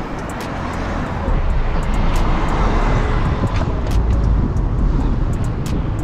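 Wind buffeting the microphone of a camera on a moving bicycle: a steady rushing rumble mixed with street noise, getting a little louder about a second in, with scattered light ticks.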